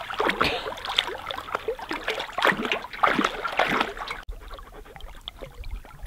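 A collie wading through shallow water beside an aluminum canoe, its legs splashing with each step. The splashing becomes fainter about four seconds in.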